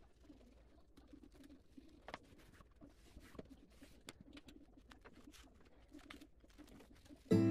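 Faint rustling and small scattered clicks of wood-grain vinyl contact film being smoothed onto a tabletop with a plastic squeegee and pressed down by hand, over an intermittent low murmur. Loud music starts right at the end.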